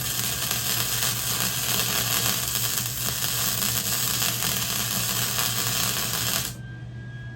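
Welding arc crackling and hissing steadily through one weld on the smoker's steel lid, then cutting off suddenly about six and a half seconds in as the arc is broken.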